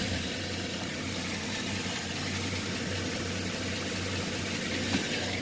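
2009 Chevy Silverado's 5.3 L LS V8 idling steadily, close to the engine. The owner hears a ticking on the driver's side, which he takes for a noisy lifter.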